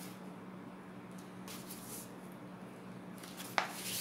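A sheet of Bristol board rustling faintly as it is folded and pressed flat by hand, with one sharp click near the end, over a steady low hum.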